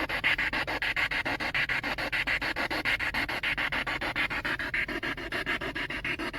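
Rapidly chopped hiss and static pulsing evenly many times a second, typical of a spirit box sweeping through radio stations.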